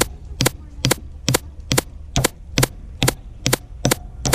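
A run of sharp, evenly spaced clicks or cracks, a little over two a second, in a steady mechanical rhythm.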